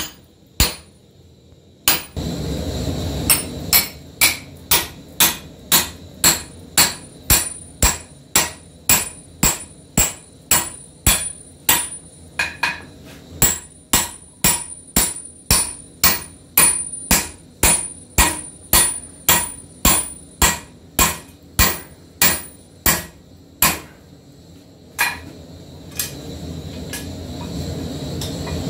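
Hand hammer striking a steel punch driven through the red-hot eye of a hammer head on a swage block: sharp ringing blows about two a second, with a short break midway, stopping a few seconds before the end. A steady low rushing noise runs underneath.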